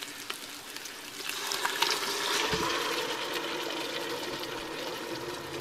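Jarred tomato-and-basil sauce pouring into a hot electric pressure cooker pot over seared meatballs, starting about a second in and hissing against the hot metal, loudest at first and then settling to a steady hiss.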